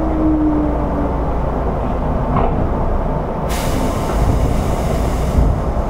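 Inside an Odakyu 1000 series electric train as it comes to a stop: a steady low rumble, with the traction motors' whine falling and fading out in the first second. About halfway in, compressed air hisses for about two seconds, then a small knock.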